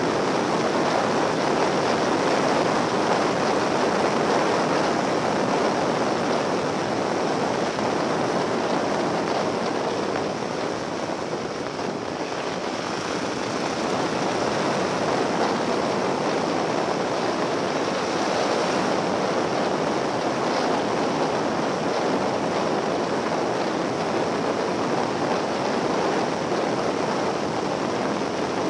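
Steady rush of wind over the on-board microphone of a Yamaha XT1200Z Super Ténéré motorcycle riding at speed, with road noise mixed in. It eases slightly about ten to twelve seconds in.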